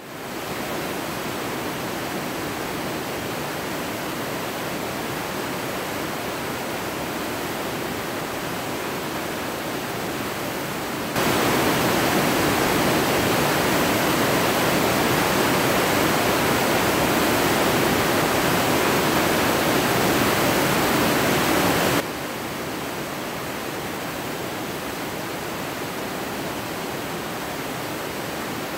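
Steady rushing roar of a whitewater river in flood, with no pitch or rhythm. It jumps abruptly louder about 11 seconds in and drops back just as suddenly about 22 seconds in.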